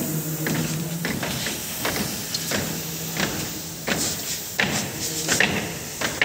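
Irregular knocks and taps, a few of them sharp and louder, over a faint steady low hum.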